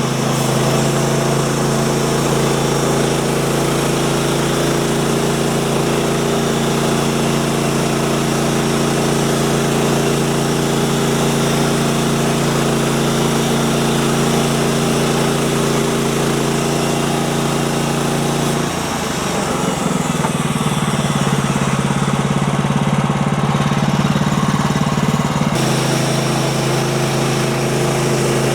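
Small gasoline engine of a Woodland Mills manual band sawmill running steadily. About 19 s in its note turns rough and unsteady for several seconds, then steadies again about 25 s in.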